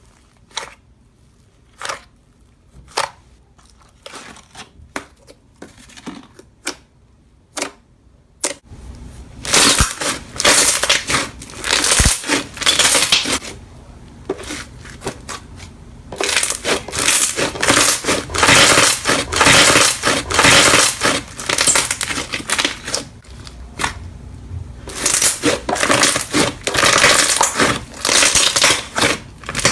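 Slime worked by hand. It gives scattered separate pops and clicks at first. From about a third of the way in it turns to long stretches of dense crackling with each squeeze and press, broken by short pauses.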